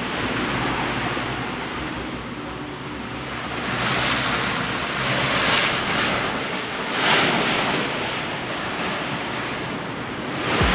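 Wind rushing over the microphone and sea water washing past a boat at sea, a steady rush that swells in several louder surges.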